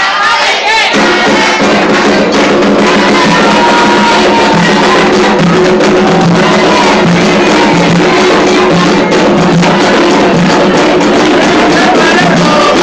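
Candomblé ritual music for Xangô: hand drums playing a steady beat under group singing, the drums coming in about a second in.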